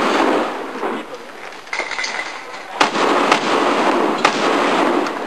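Shotgun firing in a practical shooting stage: two sharp, loud shots about a second and a half apart, over a steady noisy background.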